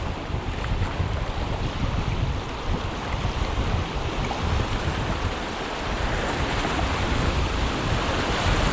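Rushing whitewater of a river rapid as the canoe runs through it, a steady loud wash with wind rumbling on the microphone.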